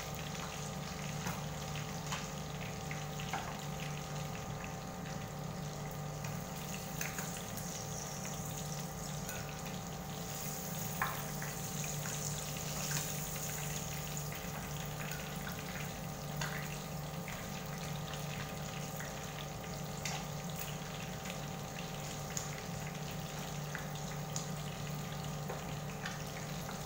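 Fish frying in shallow oil in a pan: a steady sizzle with scattered small crackles and pops, over a constant low hum.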